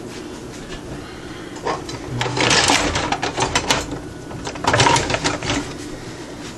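Metal kitchen utensils clattering and rattling in a drawer as someone rummages for a spatula, in two bursts of rapid clinks, the second shorter.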